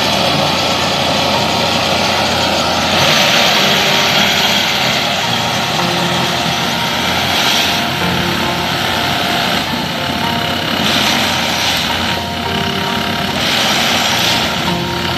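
Plasser & Theurer switch-and-crossing tamping machine at work on ballasted track: its diesel engine and hydraulics run steadily, with louder, hissier surges every few seconds as the tamping units cycle.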